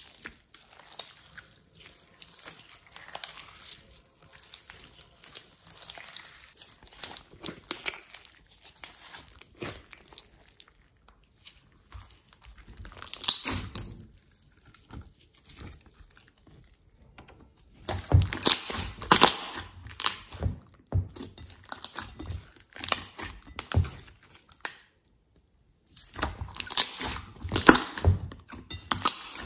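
Thick slime being kneaded, squeezed and stretched by hand: wet squelching with crackly pops of trapped air, coming in irregular bursts that are loudest about two-thirds of the way through and again near the end, after a short silent break.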